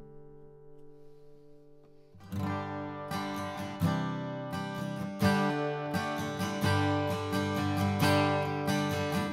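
Gibson J-45 Vintage acoustic guitar. A strummed chord rings out and fades for about two seconds, then chord strumming with a pick starts again, several even strokes a second, each one ringing into the next.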